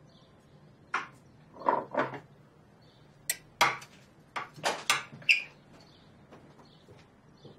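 Knife and serving utensils clinking and knocking against a serving tray and plates as a long sandwich is cut and served: a series of about nine short, separate clinks, some with a brief ring.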